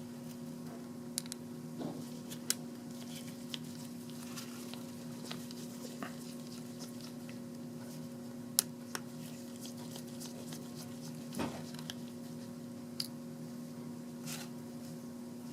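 Sparse faint clicks and taps of a Phillips screwdriver unscrewing the small cover on a slit lamp fixation arm joint and the parts being handled, over a steady low hum.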